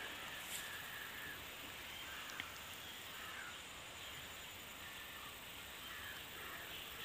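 Faint outdoor ambience with scattered distant bird calls over a steady high hiss, and a single small click about two and a half seconds in.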